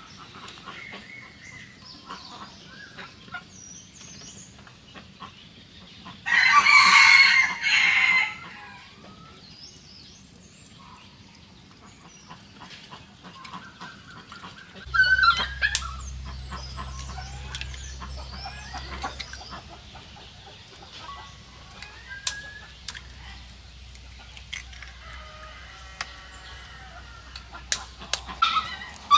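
A rooster crowing once, loud, about six seconds in and lasting about two seconds. Faint scattered bird calls and a few sharp clicks follow.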